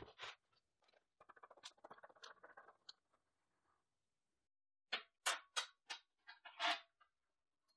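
Clay cat litter rustling and crunching in a plastic pan as it is dug through. Near the end come several short, sharp scrapes and clicks as a metal rod works through the litter and against the pan.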